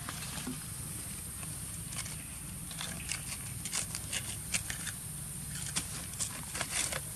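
Macaques scuffling and scrambling over stone and dry leaves: a run of short clicks and crackles, busiest in the second half, over a steady high hiss and low rumble.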